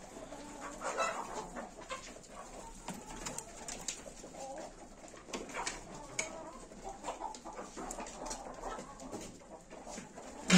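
Farm birds calling: low, soft cooing and clucking, with scattered light clicks and rustles, ending in one sharp knock.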